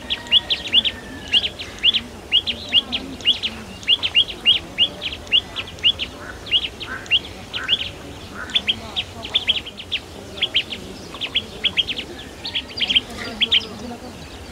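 Small birds chirping rapidly and repeatedly: short, high, upward-flicking notes about three a second, thinning briefly around ten seconds in.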